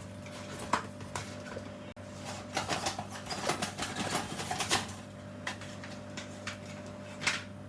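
Packaging of a small GoPro audio adapter being handled and opened: scattered rustles and clicks, busiest from about two and a half to five seconds in, over a steady low hum.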